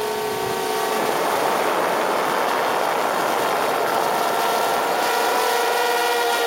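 DJI Spark quadcopter's propellers whining in flight, recorded close up by a camera slung beneath it. The steady whine gives way to a rough rushing noise about a second in, then returns and climbs slightly in pitch.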